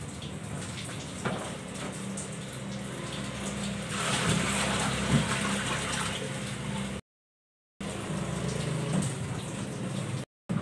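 Water running from a tap and splashing into a basin, getting louder about four seconds in, over a low steady hum; the sound cuts out briefly twice near the end.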